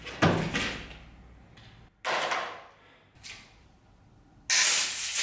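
A few knocks and handling sounds, then about four and a half seconds in, the bardiche axe blade strikes and chops open a plastic drink bottle, with a loud, noisy burst lasting under a second.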